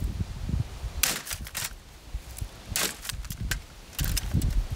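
Paintball gun firing at a plastic box fan: two sharp pops, about a second in and again almost two seconds later, with fainter clicks between them. A low rumble starts near the end.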